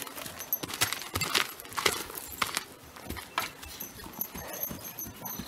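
Hoofbeats of a paint horse walking on a gravel driveway, an uneven series of crunching steps.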